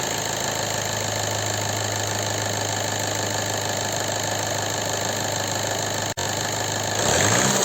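Seat Leon 2.0 TDI diesel engine idling steadily with a knocking rattle, running on fresh oil. The knock has not gone with the oil change, and metal filings in the oil filter point to internal wear, which the mechanic takes for worn bearing shells. The sound cuts out briefly about six seconds in and is louder near the end.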